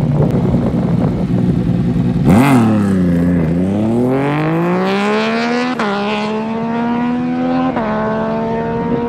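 Drag-racing motorcycle engine held at steady revs, then launching hard about two seconds in. Its pitch climbs as it accelerates, dropping sharply at two upshifts a couple of seconds apart.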